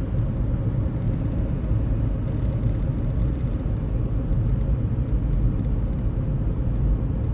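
Steady road and engine rumble of a moving car, heard from inside the cabin, with a faint steady hum above it.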